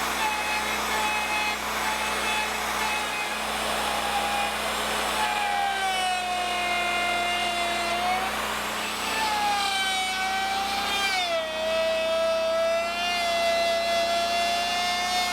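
Norwood portable bandsaw mill running and cutting a log: a steady high whine with overtones whose pitch sags and recovers several times as the cut loads it, most deeply a little past the middle.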